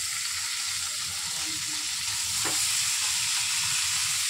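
Paneer cubes sizzling in foaming melted butter in a frying pan: a steady frying hiss, with one light knock about two and a half seconds in as pieces are set down.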